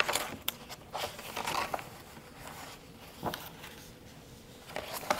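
Pages of a book being leafed through and turned: a few short paper rustles and soft clicks, with pauses between them.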